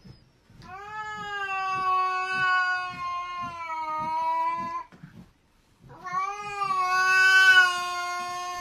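A grey-and-white domestic cat gives two long, drawn-out yowls, each held on a nearly steady pitch, with a short break between them. It is caterwauling at a rival cat facing it, a warning in a standoff.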